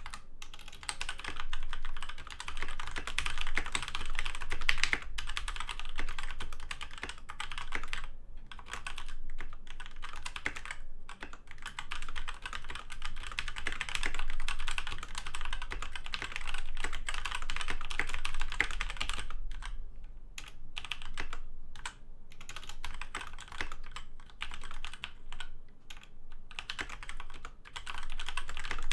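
Continuous fast typing on a DMK02 87-key mechanical keyboard with off-brand red switches: a dense run of key clacks, broken by a few short pauses.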